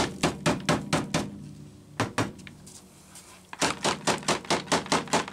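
Homelite XL-series chainsaw oil tank being tapped upside down against a cardboard-covered workbench, to shake a broken-off duckbill valve and its connector out of the bottom of the tank. Quick runs of knocks, about five a second, with a pause and two single knocks in the middle.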